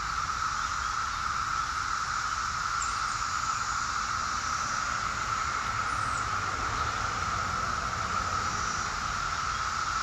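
Chorus of periodical (17-year) cicadas: a continuous, very loud, steady droning whine held at one pitch.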